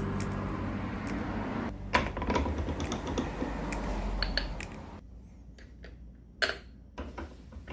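A few separate light metallic clinks and taps, like small metal parts being handled and set down, the loudest about two seconds in and again near six and a half seconds. At the start, background music fades out.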